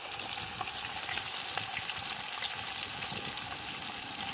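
Fish fillets sizzling in a shallow pan over a wood fire: a steady hiss with scattered faint crackles.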